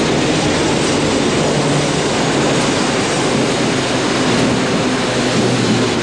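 Passenger train rolling past along a station platform: a steady, noisy rumble of the coaches with a faint low hum that shifts in pitch.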